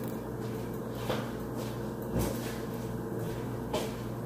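Steady low hum with a faint click about a second in, a soft low knock a little after two seconds, and another faint click near the end: small handling noises in a kitchen.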